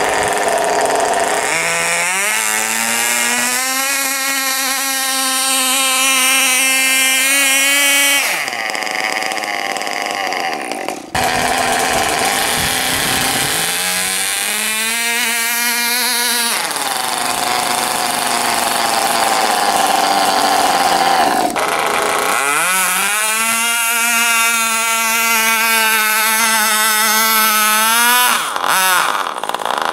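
Radio-controlled model pulling tractors' motors and drivetrains whining under load as they drag a weight-transfer sled. There are three pulls: each starts with a short rise in pitch, holds a steady tone for several seconds, then cuts off.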